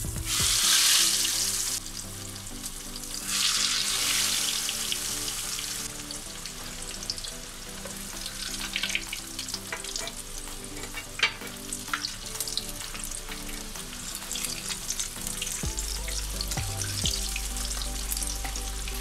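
Breaded chicken breasts shallow-frying in hot oil in a non-stick frying pan. There is a loud sizzle burst as the first piece goes into the oil, and a second about three seconds in. It then settles into a steady sizzle with scattered crackles.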